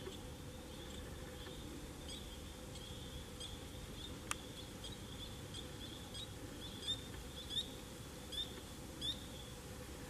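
Tree frogs calling: a steady high-pitched chorus with short chirps, four of them louder near the end, under a second apart. A single sharp click about four seconds in.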